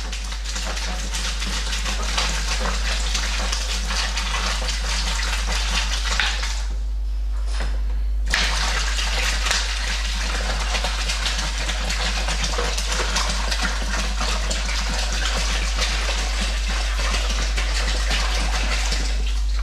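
Cold water gushing from a large plastic bottle into a plastic fermenter bucket, about 5 litres being added to the fermenter. It runs steadily, stops for about two seconds some six seconds in, then starts again.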